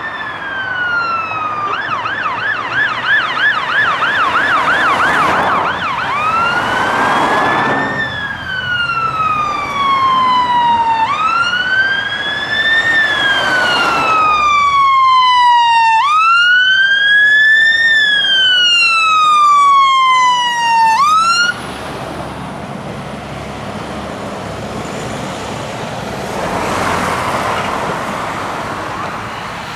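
Whelen Alpha electronic siren on a 2005 Scania 94D fire engine: the end of a falling wail, then about three and a half seconds of rapid yelp, then three slow wail cycles rising and falling, cut off abruptly about 21 seconds in. After that, road traffic and engine noise.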